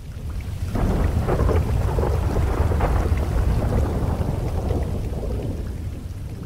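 Thunderstorm ambience: a long roll of thunder that swells about a second in and slowly dies away, over steady rain.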